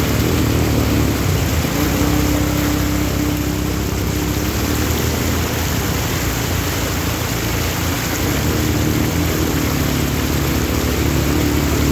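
ATV (quad bike) engines running steadily as the quads ride through a shallow rocky stream, over an even rush of flowing and splashing water.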